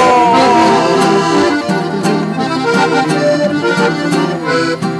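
Button accordion playing a quick run of melody notes between sung verses, with guitar strumming underneath. A man's held sung note trails off in the first second.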